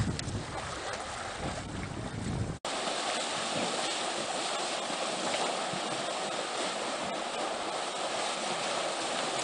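Wind buffeting the microphone with a low rumble, then, after a sudden break about two and a half seconds in, a steady rush of splashing water as a herd of African elephants wades through a shallow river.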